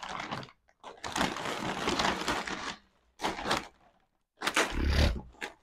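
Plastic shopping bags and packaging rustling and crinkling in several bursts as bought goods are handled and packed, with a low thump about five seconds in.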